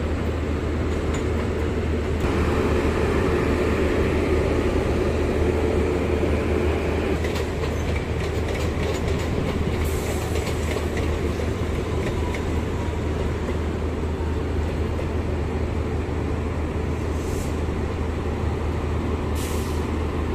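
WAP-7 electric locomotive standing at the platform with a steady low hum. An electric suburban train passes on a neighbouring track, its wheels clicking over the rail joints through the middle of the stretch.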